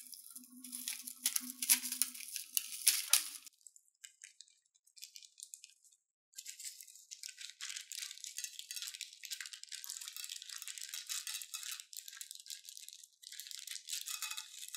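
Small plastic beads rattling inside a plastic piping bag. From about six seconds in, a continuous stream of beads spills out of the cut tip and patters down onto the slime and dish, with a short break near the end.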